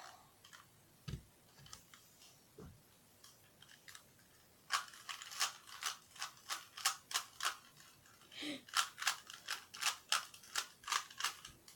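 Rubik's Cube faces being turned by hand: two runs of quick plastic clicks and snaps, about three or four a second, starting about five seconds in with a short pause between them, after a few faint knocks.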